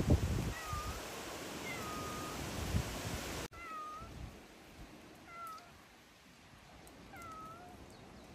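Kitten mewing: about five short, high mews spaced a second or two apart. The background hiss drops abruptly about halfway through.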